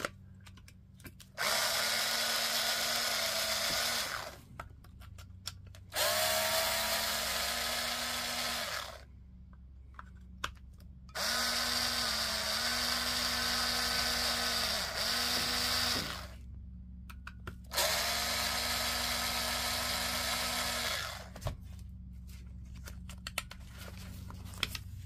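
Cordless screwdriver with a TX10 Torx bit unscrewing the case screws of a DeWalt 18V battery pack: four runs of a steady motor whine, each a few seconds long, the third dipping in speed a few times as a screw backs out. Short pauses with light handling clicks come between the runs.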